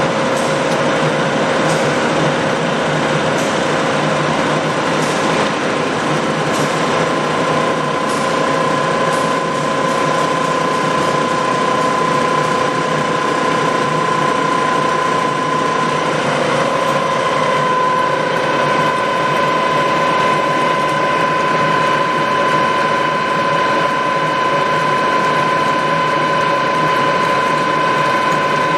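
Giddings & Lewis Bickford Chipmaster radial drill running, its geared spindle drive giving a steady mechanical whine. About seventeen seconds in, the pitch pattern of the whine shifts and a higher tone joins it.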